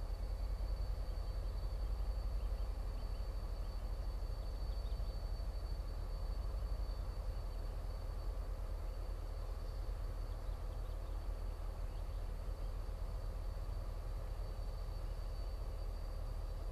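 Diesel locomotive running at low power as it draws a heavy stone train slowly forward, a steady low engine rumble.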